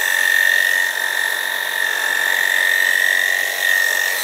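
Electric pet grooming clippers running with a steady high-pitched whine while shaving a standard poodle's coat.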